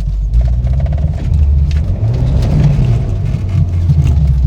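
Volvo 940 Turbo engine running under hard acceleration, a loud low rumble that shifts in pitch. The engine has a fault that makes it run poorly at full throttle until it passes about 4,000 rpm.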